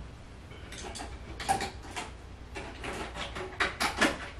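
Scattered clicks, taps and rustles of small objects being handled, with a few sharper clicks near the end.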